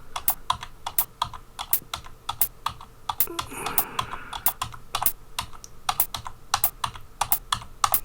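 Computer keyboard keys pressed in an uneven run of sharp clicks, about two to three a second, as notes are typed into a music tracker. A brief soft rustle sits under the clicks about three and a half seconds in.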